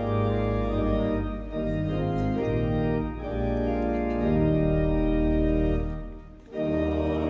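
Church pipe organ playing sustained chords over a moving bass line, breaking off briefly near the end and coming back in with a new chord.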